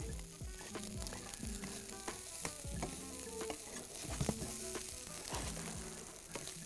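Meat sizzling as it browns in a hot frying pan, stirred with a utensil that taps and scrapes against the pan many times.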